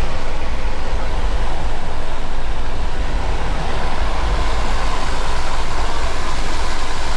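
Jump plane's engine and propeller drone with wind rushing through the open door, loud and steady, with heavy rumble on the microphone.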